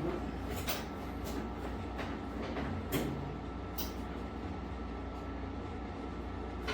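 Commercial clothes dryer running with a steady low rumble and hum, with a few light clicks and knocks.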